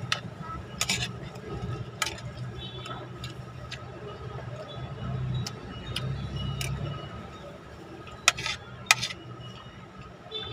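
A metal spoon clinking and scraping against a plate of rice during eating: several sharp clinks at irregular intervals, with chewing noises between them.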